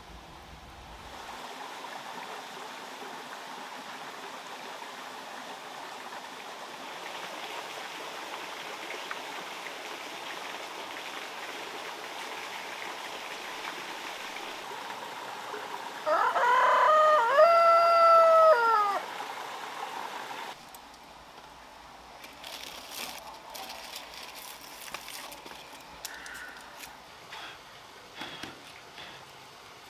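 A rooster crows once, a long call of about three seconds that rises, holds and falls away, over a steady outdoor background hiss. Afterwards there are soft rustles and light clicks as a bundle of leaves is handled and unwrapped.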